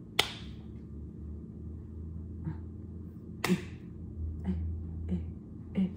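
A person snapping and clicking with their fingers: two loud, sharp snaps about three seconds apart, then softer short clicks in a steady rhythm, about one every two-thirds of a second. A low steady hum runs underneath.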